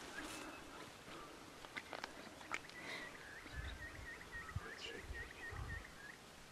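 A bird calling in a faint run of short, evenly spaced chirps, about four a second, starting about three seconds in and lasting roughly three seconds. Low dull thumps sit underneath.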